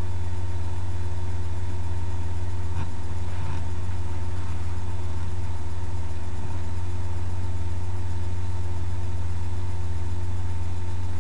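Steady low hum, with faint steady higher tones over it: constant background noise in the recording.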